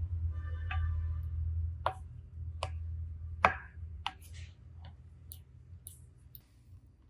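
A handful of sharp clicks and taps, the loudest about three and a half seconds in, over a low hum that fades away.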